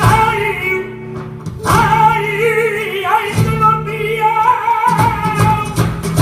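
Flamenco song: a singer draws out a wavering, ornamented vocal line over sustained instrumental accompaniment, with a few sharp percussive strokes.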